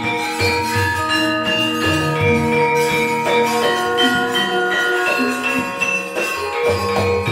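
Javanese gamelan ensemble playing: bronze keyed metallophones and gong-chimes strike overlapping notes that ring on, over lower sustained tones.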